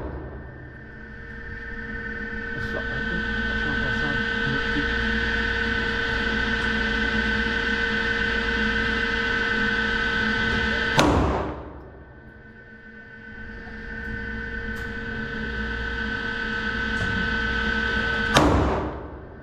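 Two single shots from a Glock 19X 9mm pistol, about 11 and 18 seconds in, each with a short echo. Under them runs a steady hum with several held tones that drops away right after each shot and swells back.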